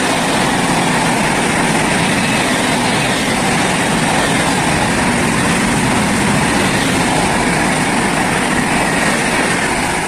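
Shatabdi Express passenger coaches rushing past at speed, a loud, steady roar of wheels and air that begins to fade as the last coach goes by near the end.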